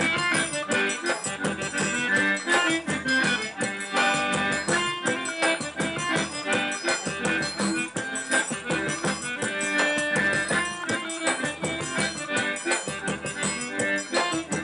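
Eight-bass diatonic button accordion (sanfona pé de bode) playing a lively traditional northeastern Brazilian dance tune, with a drum keeping a steady beat underneath.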